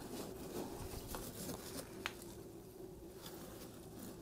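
Coke forge fire crackling faintly: a few sparse ticks and clicks, one a little louder about two seconds in, over a low steady hum.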